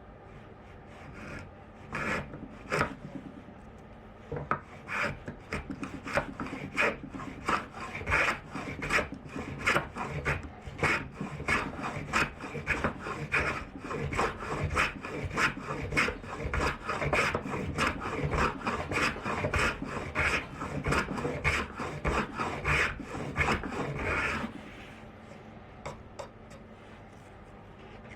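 A hand tool worked back and forth on wood in quick, even strokes, about two a second, starting about two seconds in and stopping a few seconds before the end.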